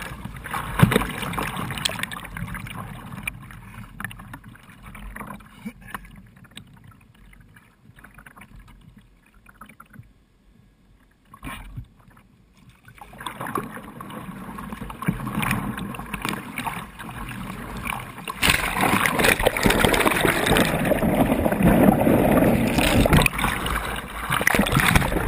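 Water splashing and churning around a whitewater playboat kayak, with paddle blades striking the water. The water quiets to a low trickle in the middle. About eighteen seconds in it becomes a loud, continuous rush of turbulent water.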